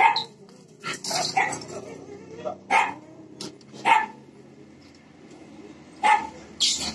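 Young dog barking in short, sharp barks while play-wrestling with baby monkeys: about seven barks, with a pause of a couple of seconds before the last two.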